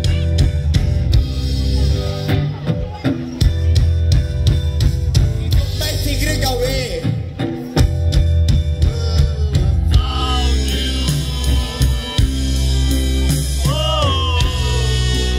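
A live rock band playing, led by electric guitar over a drum kit with a steady beat and bass.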